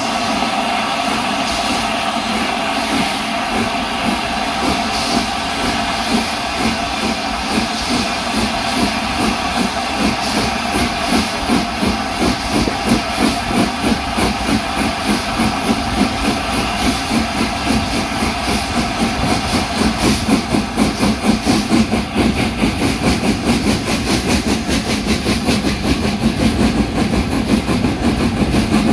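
Steam locomotive 60163 Tornado, a three-cylinder Peppercorn A1 Pacific, working hard as it climbs away from a station: a rhythmic chuff of exhaust beats over steam hiss and the rumble of wheels on rail, heard from the carriage coupled behind the tender. The beats grow stronger and a little louder from about a third of the way in.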